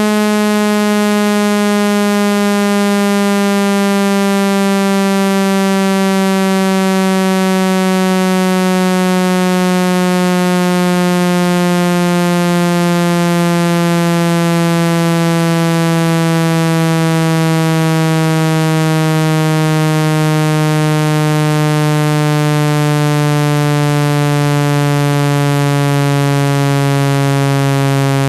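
Synthetic buzzing tone, rich in overtones, gliding slowly and steadily down in pitch: a speaker water-eject tone meant to vibrate trapped water out of a phone speaker grille.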